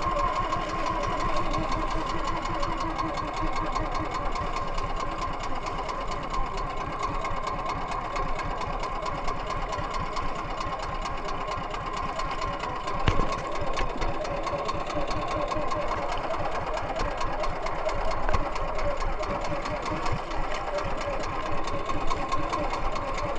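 Outrigger banca's small inboard engine running steadily at sea, a fast even beat with no change in speed.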